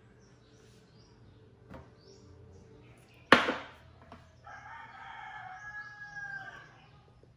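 A single sharp knock about a third of the way in, as the sugar shaker is set down on the table. Then a rooster crows, fainter, for about two seconds, its call falling away at the end.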